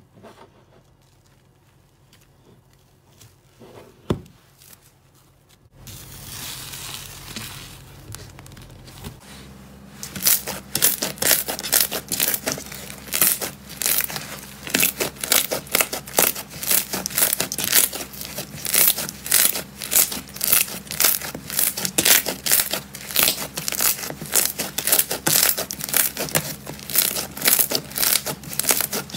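Fluffy 'firecracker cotton' slime being pulled from its tub and then stretched and kneaded by hand: first a soft tearing hiss as it peels away, then from about ten seconds in a dense, continuous crackling and tearing, several sharp crackles a second, as the slime is pulled apart and squeezed.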